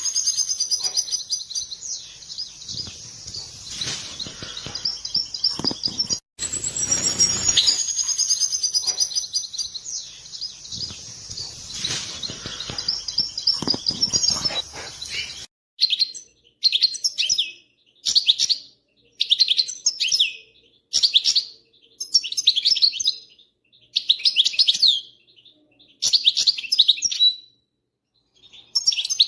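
European goldfinch twittering 'batbata' chatter. For about the first fifteen seconds it is a dense, unbroken stream of twittering, briefly cut off just after six seconds. After that it comes in short separate bursts about once a second with silence between.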